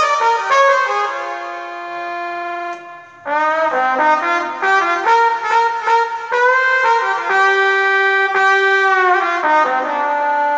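Roland Lucina AX-09 keytar playing a melody of short and held notes, with a brief break about three seconds in and a few notes bent up and down in pitch.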